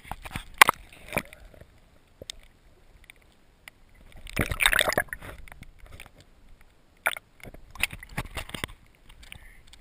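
Water sloshing and gurgling around a small flats skiff's hull, with scattered sharp knocks and taps on the boat. About four and a half seconds in there is a louder rush of water.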